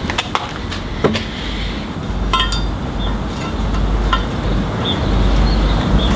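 A handful of sharp light clicks and clinks as small hand tools are handled against a steel motorcycle brake disc while its hole positions are marked out, over a steady low rumble.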